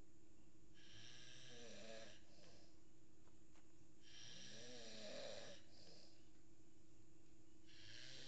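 Snoring of a sound sleeper: a snoring breath about every three and a half seconds, three in all, the last starting near the end. A steady low hum runs underneath.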